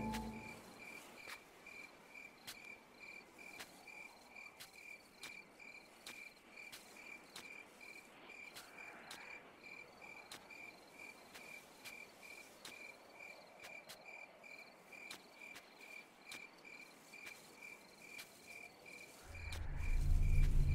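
A cricket chirping faintly and steadily, short chirps at one pitch about three times a second, with scattered faint clicks. A low rumble swells in about a second before the end.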